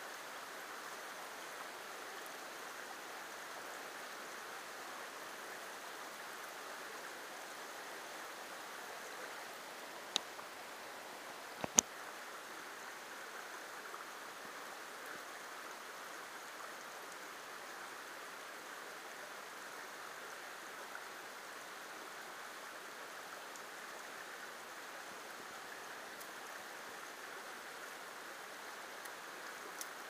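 Small creek water running steadily over rocks in a shallow riffle. A few sharp clicks come about ten seconds in and again near twelve seconds, the second the loudest sound here.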